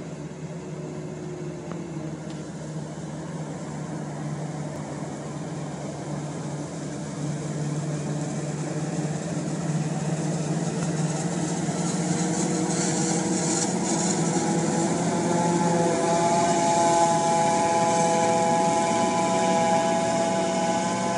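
Self-propelled forage harvester chopping standing corn beside a tractor pulling a silage wagon: a steady drone of engines and chopping machinery that grows louder as the machines approach. A whine of several steady tones comes in over the second half and is strongest near the end.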